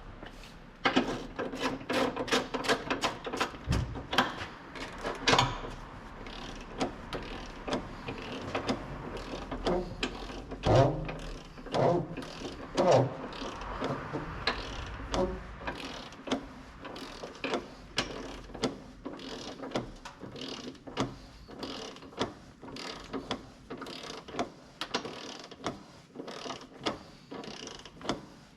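Ratchet wrench clicking as bolts are turned, in quick runs of clicks at first and then in shorter, irregular strokes.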